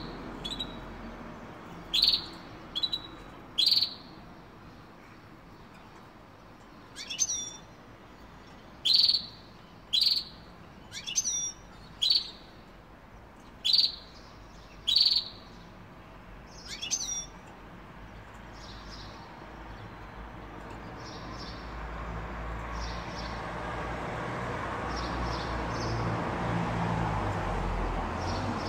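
European goldfinch giving short, sharp chirping notes a second or two apart, some sweeping up or down in pitch. Later the notes turn faint while a steady background noise builds up.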